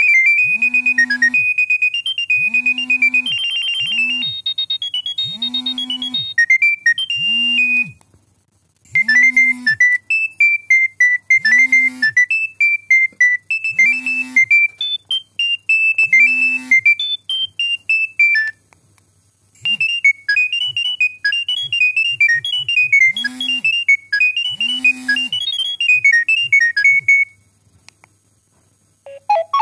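Nokia 7210 synthesized ringtone melodies playing: a high tune over a low bass note repeating about once a second, breaking off briefly three times.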